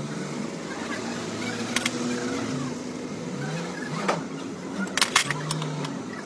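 A few sharp metallic clinks of tools or parts struck together, the loudest cluster about five seconds in, over a steady background drone.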